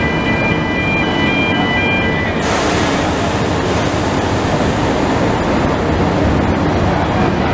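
Steady low rumble of heavy port machinery running, with a high warning tone made of several pitches sounding until about two and a half seconds in. A loud hiss then starts abruptly over the rumble.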